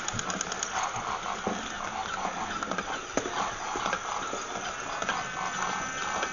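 Battery-operated walking toy animal running: its small electric motor and plastic gears whir with a rapid clicking rhythm, and a thin high tone joins near the end.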